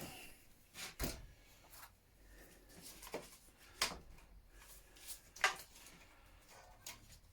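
A few scattered sharp clicks and knocks, the loudest about five and a half seconds in, from hand tools and small parts being handled while a scooter is dismantled.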